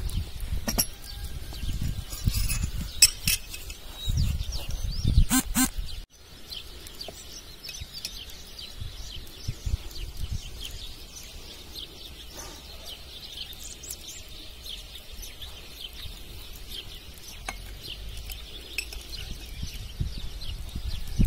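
Clinks of glass and crockery being set down on a table, a few sharp ones in the first six seconds, over small birds chirping. After an abrupt break about six seconds in, only the birds' continuous high chirping goes on.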